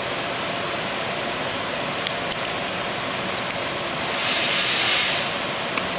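Steady background hiss with a few light clicks as the wires and connectors on a toy electric scooter's battery are handled, and a brief louder hiss lasting about a second, starting around four seconds in.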